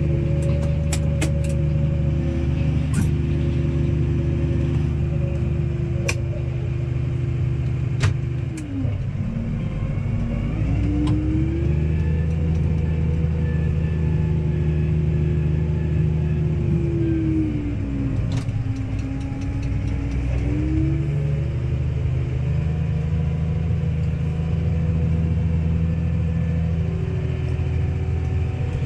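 Case Maxxum 140 tractor engine running steadily while working a field. Its speed dips twice and climbs back, and there are a few light clicks in the first seconds.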